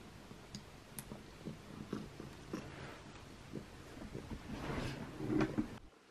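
A domestic cat purring softly while its collar is handled, with small clicks, then licking its fur in quick strokes that grow louder before stopping suddenly near the end.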